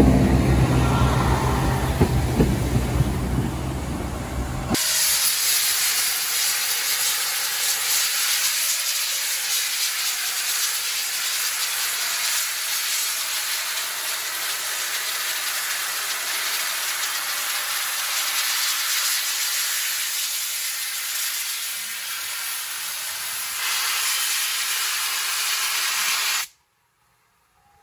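A diesel multiple unit's engines run as it pulls out, until the sound changes sharply about five seconds in. Then GWR Castle class 4-6-0 No. 5043 Earl of Mount Edgcumbe blows steam from its open cylinder drain cocks in a steady, loud hiss that cuts off abruptly about a second before the end.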